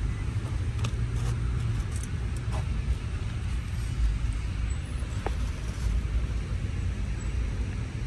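Steady low outdoor rumble with a few light clicks and knocks.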